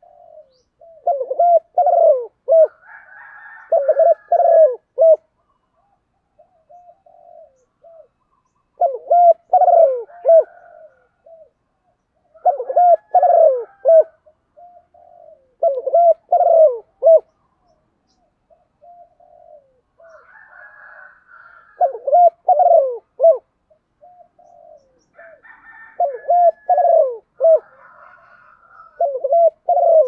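Spotted dove cooing: phrases of a few low coos, about eight phrases in all, each recurring every three to four seconds, with faint higher chirping in between. It is a decoy dove's call, made to draw other doves to it.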